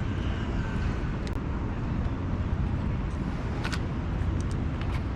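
Steady low background rumble, with a few light clicks.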